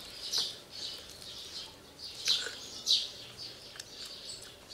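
Birds chirping, a few short high calls, loudest about two and three seconds in.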